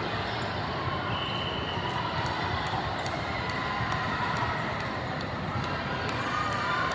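Busy hall at a volleyball tournament: a steady crowd murmur of many distant voices, with scattered sharp knocks of volleyballs being hit and bounced on other courts.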